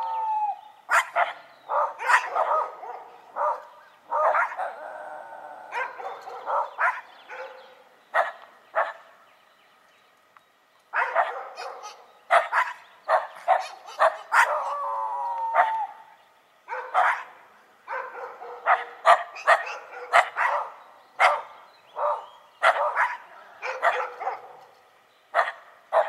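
Dogs barking in repeated sharp bursts, mixed with a few longer howling cries that slide down in pitch. There is a quiet gap of about two seconds near the middle.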